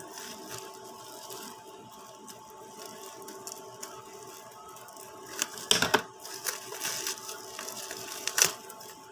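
Clear plastic packaging bag being handled and pulled open by hand: quiet rustling, then a cluster of sharp crinkles a little past the middle and one more near the end. A steady faint hum sits underneath.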